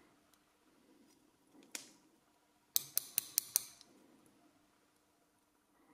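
One sharp metallic click, then about a second later a quick run of six sharp metallic taps, about six a second, as the night latch's lock cylinder is tapped to knock its pins and springs loose.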